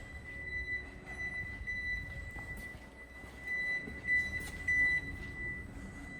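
A steady high-pitched whine held on one pitch over a low rumble, with a couple of short knocks about four and a half seconds in.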